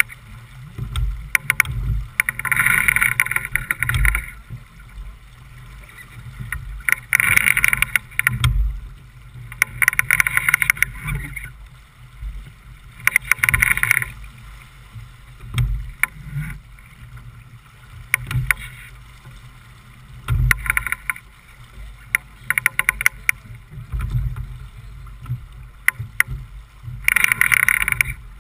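Water splashing and hissing along the hull of a J/24 sailboat under sail, in bursts of a second or two several times, over a steady low rumble of wind buffeting the microphone.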